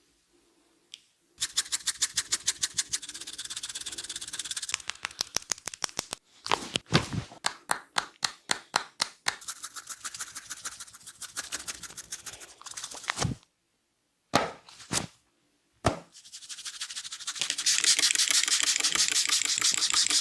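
Barber's hands working a head massage: quick, rhythmic slaps and snapping strokes on the head and hair, several a second. They come in short runs that cut off abruptly, with two brief silent gaps near the middle and a dense run of crackling strokes near the end.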